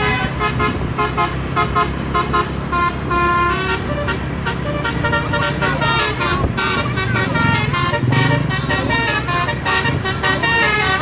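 Basuri telolet multi-tone air horn on a bus playing a melody of quick, short tooting notes, with the notes thickening into overlapping chords about halfway through, over steady engine and road rumble.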